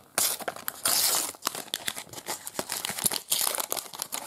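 A Panini sticker-and-card pack wrapper is being torn open and crinkled by hand. There is a louder tearing rip just after the start and a longer one about a second in, then a run of quick crackles as the wrapper is handled.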